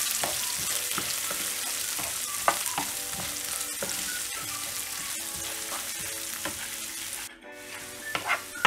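Chopped onions sizzling in hot oil in a nonstick pan while a wooden spatula stirs them, with scattered light scrapes and taps of the spatula on the pan. The sizzle cuts out abruptly for a moment near the end.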